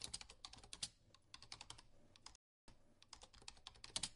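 Typing on a computer keyboard: quick, uneven keystrokes that stop dead for a moment about two and a half seconds in, then carry on.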